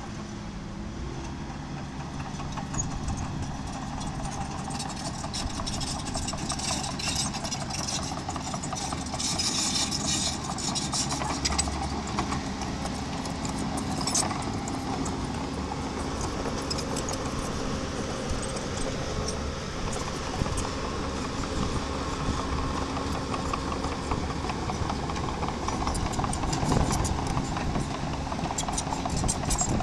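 Miniature bulldozer's engine running steadily under a continuous clanking rattle of its tracks and the stone it is working.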